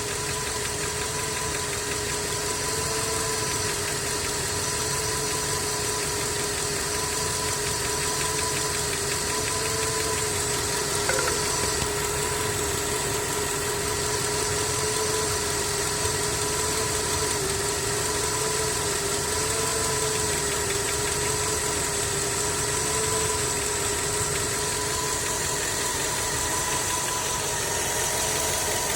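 Skoda's 1.6 BSF four-cylinder petrol engine idling steadily with a knock from inside the engine, and a steady whine underneath.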